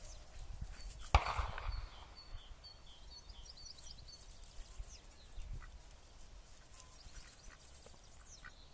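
Faint outdoor ambience: wind rumbling on the microphone, with small birds chirping in the distance over the first few seconds. A single sharp knock about a second in is the loudest sound.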